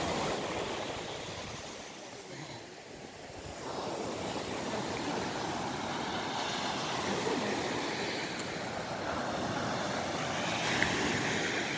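Sea surf breaking and washing up a sandy beach, a steady rush of waves that eases about two seconds in and then builds again.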